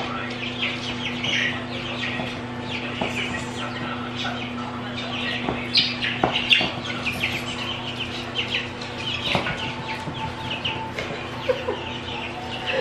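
Young pullet chicks peeping and cheeping in quick short calls over and over, with a steady hum underneath and a few sharp taps.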